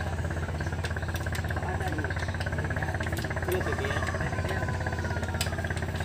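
Small single-cylinder boat engine idling steadily, with a fast, even firing beat.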